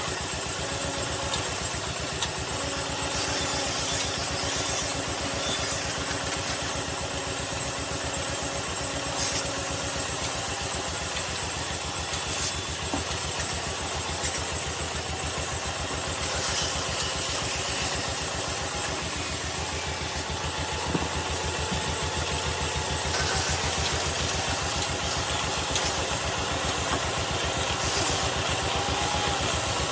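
Woodturning lathe running steadily with a fine rapid hum and a steady high whine, spinning a wooden part for a diwan bed; faint scraping comes and goes at times.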